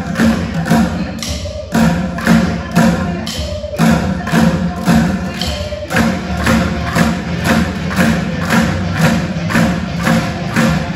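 A group of bucket drummers striking upturned plastic buckets with drumsticks together, a steady beat of about two strokes a second.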